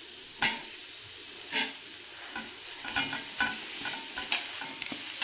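Slotted spatula scraping and knocking against a metal kadhai while stirring a masala of onion and garlic frying in oil, over a steady low sizzle. Two loud knocks come in the first two seconds, then quicker, lighter clicks from about three seconds in.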